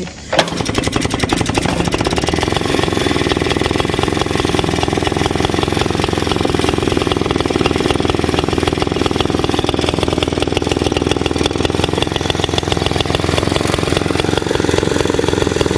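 Two-stroke engine of a 1950s Greens roller mower catching just after the start and then running steadily at a fast, even beat, freshly kick-started on choke.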